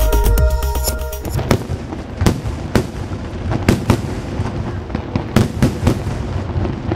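Electronic music that cuts off about a second in, followed by a fireworks display: irregular sharp bangs and crackles as shells and effects burst, over a continuous rumble.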